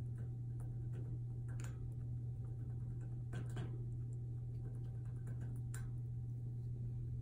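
A few light clicks and rattles from a wire cage gate as a guinea pig paws and climbs at it, over a steady low hum.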